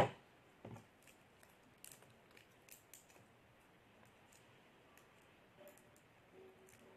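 Faint, scattered clicks and crinkles of hands handling a cellophane-wrapped caramel and a thin wooden skewer as the sweet is pressed onto the stick with hot glue. A soft knock comes under a second in.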